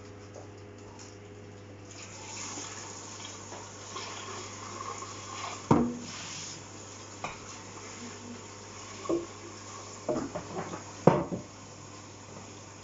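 A metal saucepan and stainless steel bowls clanking in a stainless steel kitchen sink while water runs from the tap. The loudest clank comes about six seconds in, with a quick run of clanks near the end.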